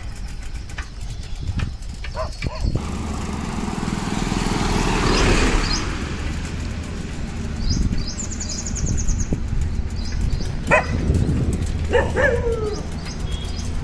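Road ambience with a steady low engine hum. A vehicle passes, swelling up and fading about five seconds in, and there are two short animal calls near the end.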